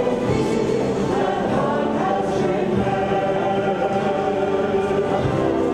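A choir singing a hymn, many voices holding sustained notes together.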